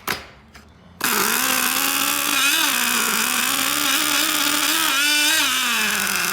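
Small rebuilt RC nitro (glow-fuel) engine firing up about a second in and running with a loud, high buzz whose pitch wavers up and down.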